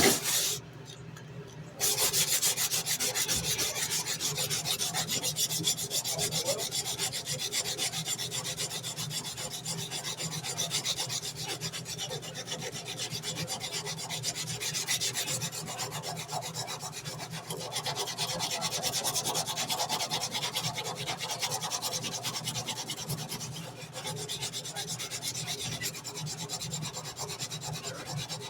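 Sandpaper rubbed back and forth by hand along a steel tanto knife blade in quick, continuous strokes, starting about two seconds in after a brief knock.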